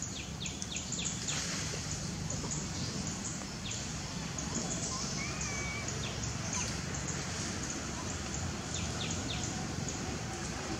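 Outdoor ambience: a steady low background noise with scattered faint, short bird chirps and a brief wavering whistle about five seconds in.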